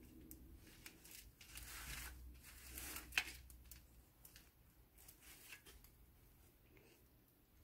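Faint soft scraping and squishing of a spatula spreading whipped cream-cheese filling in a foil pie pan, with one sharp click about three seconds in.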